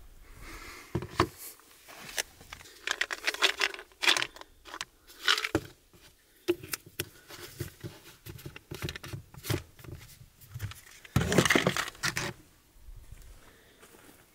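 Close handling of a plastic tub of dry dog kibble and a plastic pill bottle: a string of small clicks, rattles and rustles, with a louder burst of rattling and rustling near the end.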